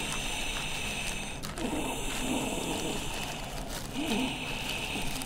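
Rustling and small clicks of plastic medical supplies being handled and unwrapped, over a steady hiss.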